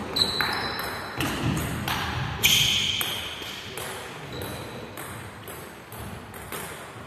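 Table tennis ball being hit back and forth, sharp clicks off the bats and table about once every second, the loudest a little over two seconds in, echoing in a large gym hall. A few weaker, scattered knocks follow once the rally ends.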